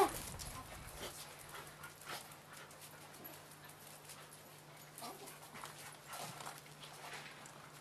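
A dog gives a short high yelp right at the start, then a few faint whimpers follow later, with soft footsteps on gravel.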